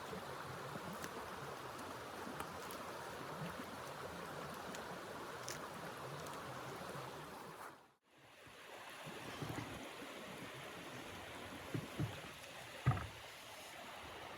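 Faint, steady rushing noise that fades out about eight seconds in and comes back, with a few soft knocks near the end.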